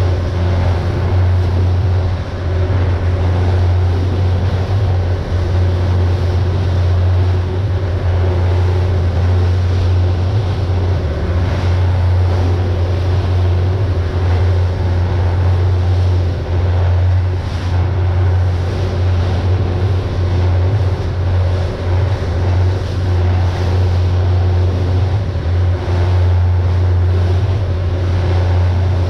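Pilot boat under way: its engines running with a steady low drone, over a haze of water and wind noise against the hull.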